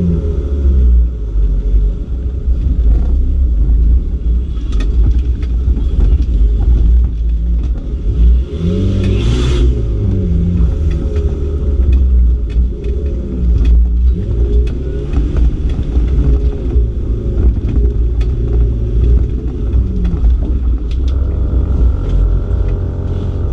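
Off-road competition car's engine heard from inside the stripped cabin, loud and revving up and down as it is driven over rough ground, with knocks and rattles from the body. A brief hissing rush comes about nine seconds in.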